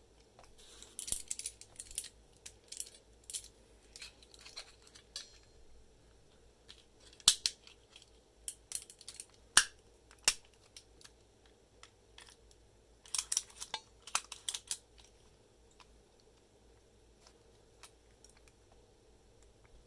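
Short scraping strokes of a small file on a brass key blank, coming in two bursts, with a few sharp metallic clicks between them from the key and padlock being handled.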